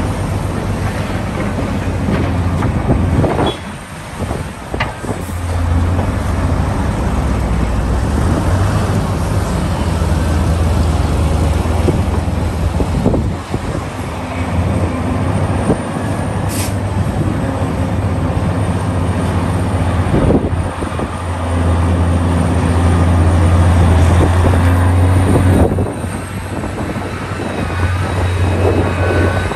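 Heavy excavator's diesel engine running at work, a deep steady drone that drops and picks up again several times as the load changes. A few short knocks and clanks sound over it.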